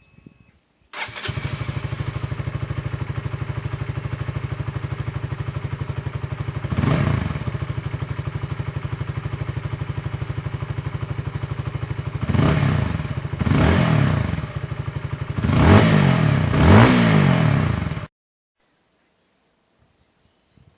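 Honda CBR125R's single-cylinder four-stroke engine, breathing through an aftermarket imitation Akrapovic silencer. It starts about a second in and idles steadily, with five quick throttle blips, the last two the loudest. It cuts off suddenly near the end.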